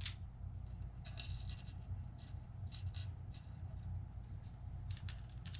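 Screwdriver driving a screw into the plastic back casing of a drone remote controller: a run of light, irregular clicks and scrapes.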